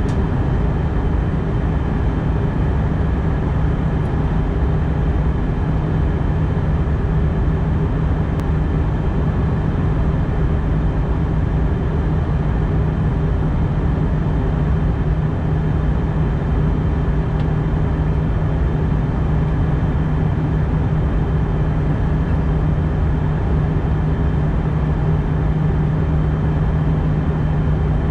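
Steady cabin noise inside an Airbus A319 in flight, heard at a window seat: an even rush of airflow and engine noise with a steady low hum, unchanging throughout.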